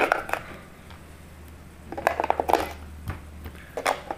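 AA batteries being pushed into a plastic radio transmitter's battery compartment: short clusters of small plastic clicks and rattles near the start, about two seconds in, and near the end.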